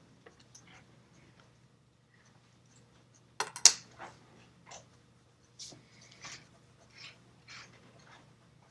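Short graphite pencil strokes scratching on paper, each brief and repeated every half second or so in the second half. A sharp double click about three and a half seconds in is the loudest sound.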